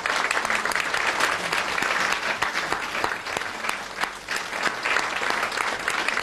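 An audience applauding: many hands clapping in a dense, steady patter that eases slightly about four seconds in.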